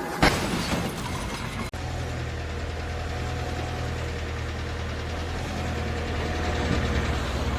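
A loud bang just after the start, then, after a brief break, an engine running steadily with a low, even rumble.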